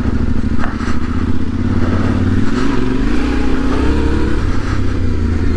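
Yamaha Ténéré 700's 689 cc parallel-twin engine running as the bike is ridden. Its note dips about halfway through, then rises steadily for a second or so.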